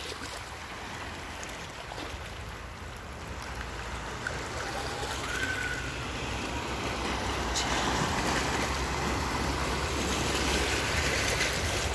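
Small waves washing over a rocky shore: a steady rush of surf that grows a little louder toward the end.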